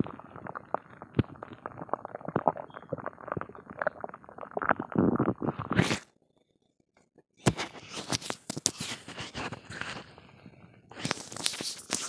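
Empty, gassy human stomach growling and gurgling, heard up close against the belly: a dense run of crackling gurgles, broken by a second or so of near silence about six seconds in, then starting again with a louder burst near the end.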